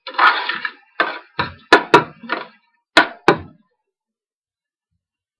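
Metal spoon stirring diced tomatoes and onions in a stainless steel pot, scraping and knocking against the pot's sides and rim: about six sharp knocks with short scrapes between them, stopping about three and a half seconds in.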